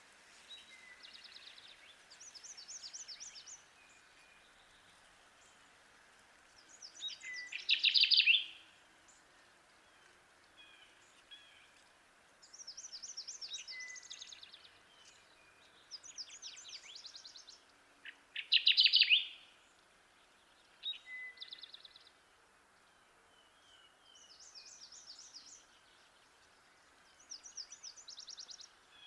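Kirtland's warbler singing its loud, low-pitched chip-chip-too-weet song, a phrase of about a second and a half repeated roughly every 11 seconds: twice, with a third starting right at the end. Fainter, higher, rapid songs of other birds sound between the phrases.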